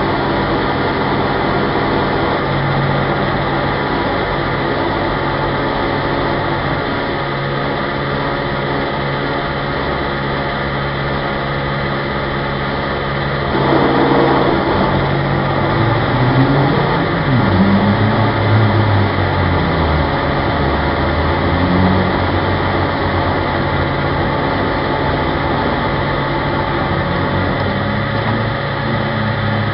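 Petrol pump at a filling station running as fuel is dispensed: a steady motor hum over the rush of flowing fuel. About halfway through it grows louder and rougher, and for a couple of seconds its low pitch wavers up and down before settling.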